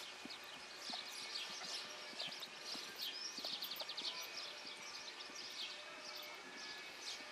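Muffled hoofbeats of a ridden horse cantering on a sand arena, with birds chirping and trilling steadily.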